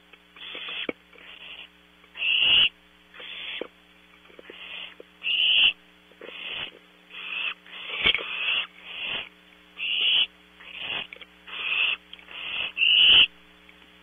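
Barn owl nestlings giving their hissing begging calls, short rasping hisses repeated roughly once a second, some louder than others.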